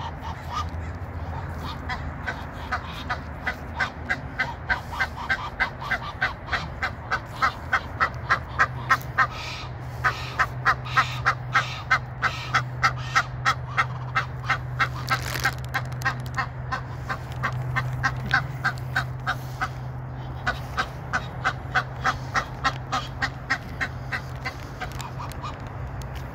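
Egyptian geese honking: a long run of rapid, evenly spaced harsh honks, about four a second, breaking off briefly a few times.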